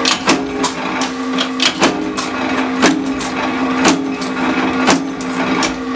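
Power press blanking teaspoon shapes out of a metal strip: sharp metallic strokes about once a second, with a few lighter clicks between them, over the steady hum of the press running.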